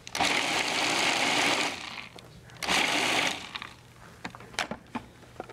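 Food processor pulsing twice to chop dates, walnuts and cashews together: a run of about two seconds, then a shorter burst about two and a half seconds in, followed by a few faint clicks.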